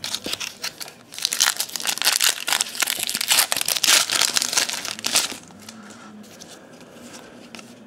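A foil Topps baseball-card wax pack being torn open and crinkled in the hands: dense crackling that builds about a second in and stops after about five seconds as the cards come out.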